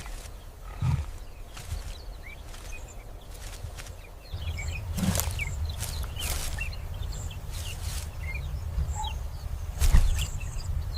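Outdoor wildlife ambience: a low rumble that swells about four seconds in, a few scattered thumps, and short high bird chirps through the second half.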